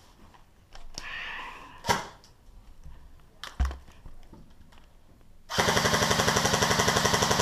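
A few scattered clicks and knocks, then about two-thirds in a long full-auto burst from an airsoft electric gun: rapid, evenly spaced shots that keep going.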